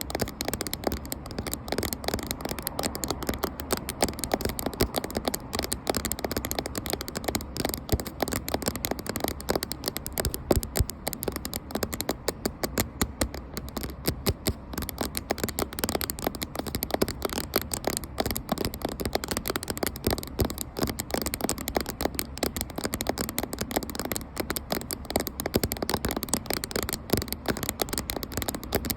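Fast, continuous tapping on a camera, many small taps a second without a break.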